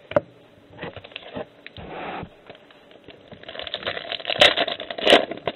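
Trading cards being handled: rustling, crinkling and light clicks. It gets busier and louder over the last two seconds, with two sharp clicks.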